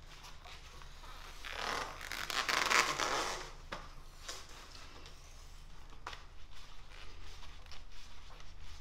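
Hand-cranked bar roller bending a 3/16 by 1 inch flat bar, the metal scraping and grinding through the rollers in one loud pass lasting about two seconds, a second or so in. Lighter clicks and ticks from the roller follow.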